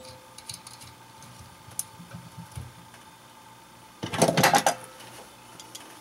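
Light clicks, then a short rattling clatter about four seconds in, lasting under a second.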